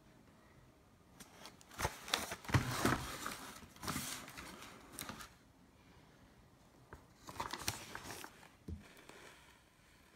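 Cardboard product box being handled and turned over: irregular scraping and rustling in two spells, with a couple of sharp knocks.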